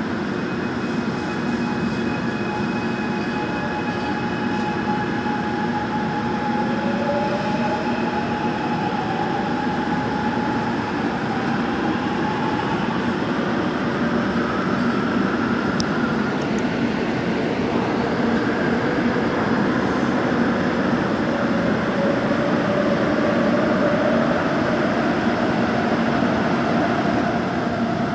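Gwangju Metro Line 1 train heard from inside the car as it pulls out of a station and runs into the tunnel: steady wheel and running noise, with the traction motors' whine rising in pitch as it gathers speed, once about six seconds in and again later.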